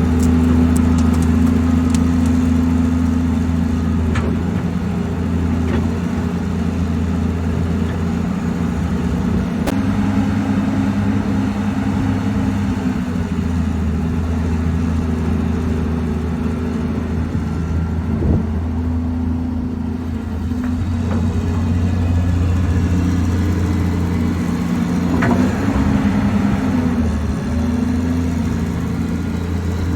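2006 Caterpillar 330C excavator's Cat C9 diesel engine running steadily, its note easing and picking up again about two-thirds of the way through, with a few sharp knocks along the way.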